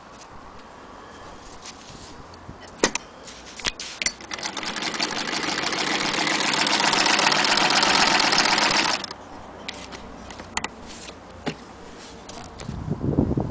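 Singer hand-crank vibrating-shuttle sewing machine being cranked. Its dense mechanical rattle builds up from about four seconds in, runs fast and steady, then stops abruptly about nine seconds in. A couple of sharp clicks come before it, and a low thud near the end.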